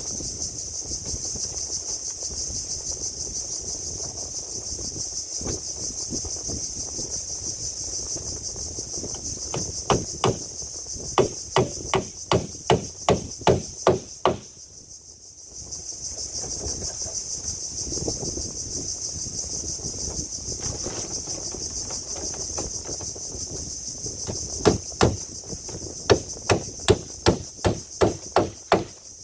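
Hammer blows on wood in two runs of about a dozen strikes each, two to three a second, the first near the middle and the second near the end, over a steady high insect buzz.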